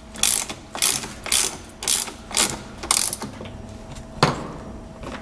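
Hand ratchet wrench cranking down an exhaust clamp bolt: six quick ratcheting strokes about two a second, then a single sharp knock a little past four seconds in.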